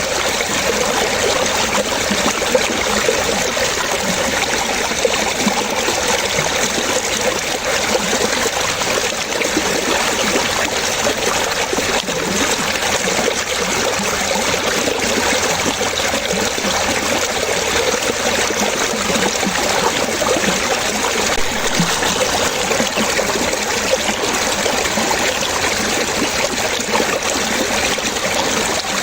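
Running water trickling and splashing steadily, an even, unbroken rush without pauses.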